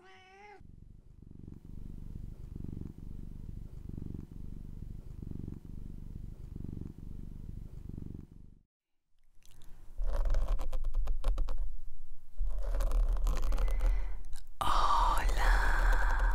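A brief wavering tone, then a muffled, low, pulsing sound for about eight seconds. After a short silence, fingers rub and scratch on the foam covers of the microphones, a loud scratching with deep rumbling handling noise.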